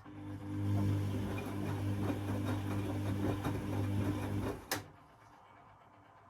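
Beko WA 1050 washing machine: a relay clicks and an electric motor inside hums steadily with some irregular rattling for about four and a half seconds, then a second click cuts it off.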